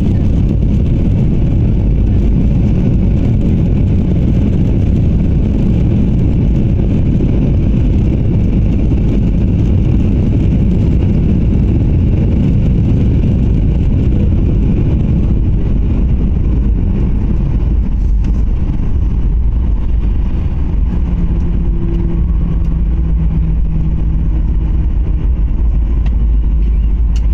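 Jet airliner cabin noise on the landing rollout: a loud, steady low rumble of engines and wheels on the runway, easing a little about halfway through, with a faint steady hum showing near the end.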